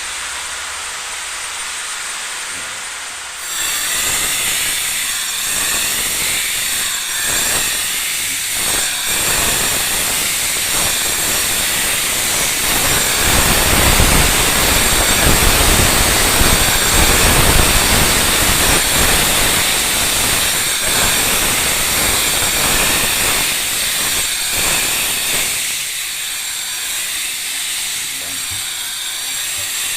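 A power tool running: a faint high whine, then a loud, rough hissing rush that starts suddenly about three and a half seconds in, is loudest midway and eases toward the end.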